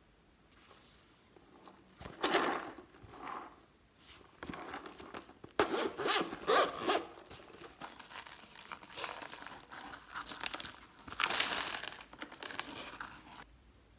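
Slime being kneaded and stretched by hand, in uneven bursts starting about two seconds in and stopping shortly before the end.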